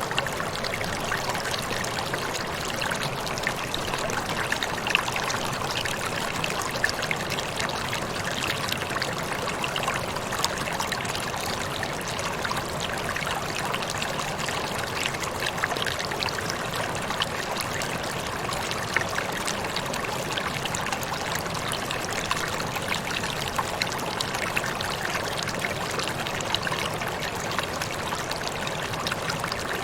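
Small waterfall running steadily: water splashing and trickling onto rocks in a continuous rush with many small splashes.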